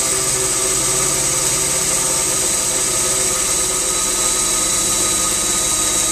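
Power drill running steadily under load, with a steady motor whine, as a Greenlee DTAP combination bit drills and taps a hole in sheet steel in one pass.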